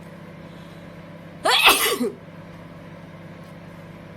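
COMFEE' 700W mini microwave oven running with a steady low hum. About a second and a half in, a loud, short voice-like cry of about half a second cuts across it.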